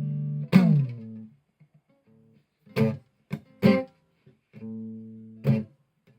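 A.B. Manson Merlin plucked string instrument played through an AER Bingo 2 acoustic amplifier with no effects. A ringing chord is cut short about half a second in and followed by a plucked note that slides down in pitch. Then come a few short plucked notes and one held note, with brief silences between them.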